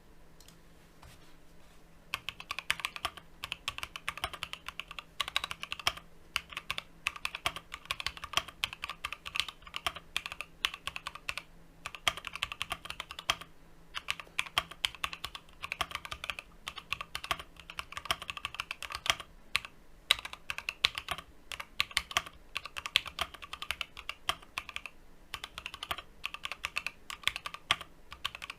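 Fast typing on an Akko MOD007 gasket-mount mechanical keyboard with MMD Ice Cream full-POM switches: a dense run of key clicks with brief pauses, starting about two seconds in.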